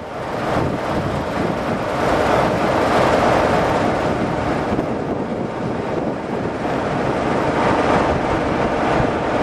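The Sulzer diesel engine of Class 47 locomotive 47 500 running as the train moves slowly past, with a steady noise that gets louder about two seconds in.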